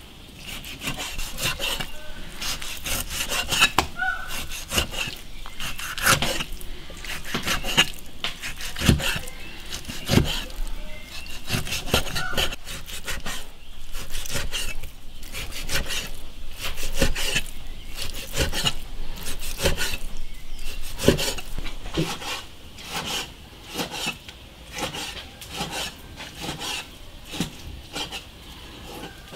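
Cleaver cutting pork belly into small chunks on a thick wooden chopping block: irregular knocks of the blade on the wood, a few a second, with scraping as the blade slices through the seared skin and fat.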